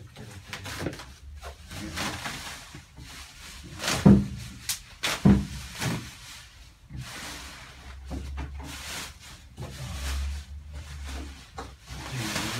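Plastic bubble wrap rustling and crinkling as it is pulled by hand off a large packaged panel, with a few sharp knocks, the loudest about four seconds in.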